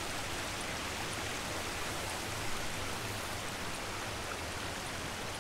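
Steady, even rush of a small creek's running water.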